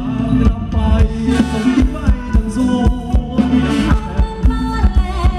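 Thai ramwong dance music played loud by a live band through a PA, with a steady fast drum beat and a melody line over it.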